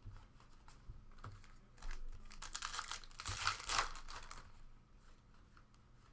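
A trading-card pack wrapper crinkling and tearing as it is opened, loudest from about two to four seconds in, with a few light clicks and taps before it.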